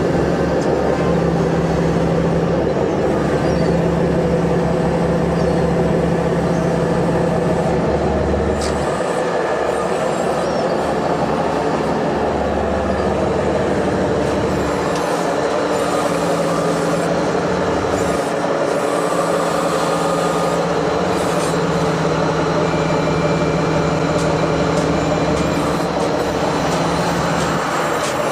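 A fishing boat's engine running steadily on board, a constant loud mechanical drone with a steady hum and a fast low pulsing.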